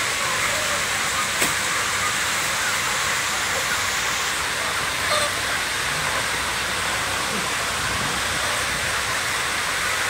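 Steady, dense din of thousands of broiler chickens crowded in a poultry house, their many short calls blurring into a continuous hiss-like wash. A single sharp click about one and a half seconds in.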